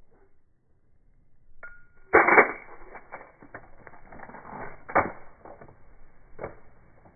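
Gunshots on a shooting range: a loud shot about two seconds in, a second shot about three seconds later and a fainter one near the end, with small mechanical clicks between them.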